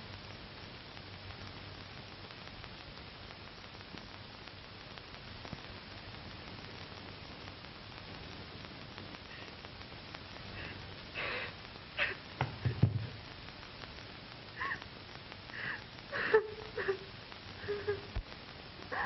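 Steady old-film soundtrack hiss, then about ten seconds in a woman starts sobbing and sniffling in short broken gasps, with a dull thump partway through.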